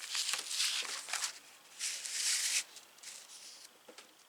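Paper rustling as a model kit's instruction sheet is handled and its pages turned: two rustles in the first two and a half seconds, then a few light ticks.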